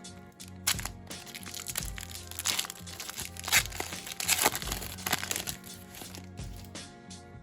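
Trading-card pack wrapper crinkling as it is handled and opened, busiest in the middle, over background music with a steady beat.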